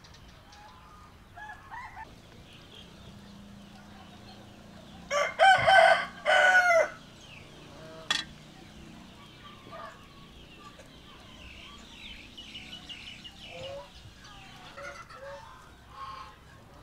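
A rooster crows once, loud, about five seconds in, in one drawn-out call of under two seconds. Faint small-bird chirps go on around it, and a single sharp click comes a couple of seconds after the crow.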